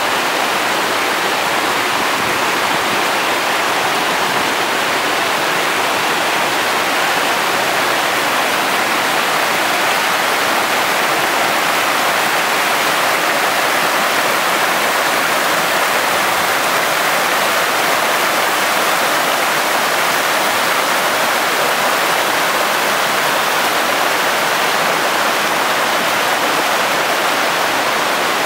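Waterfall in heavy flow, swollen by recent rain: a loud, steady rush of falling water.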